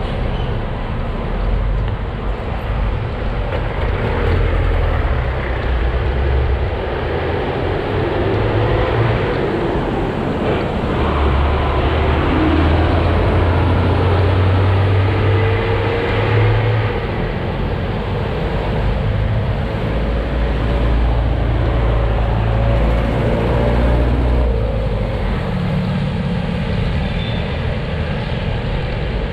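City street traffic: motor vehicle engines, including a bus, running and passing close by, with a steady rumble throughout. Around the middle an engine's pitch glides gently up and down.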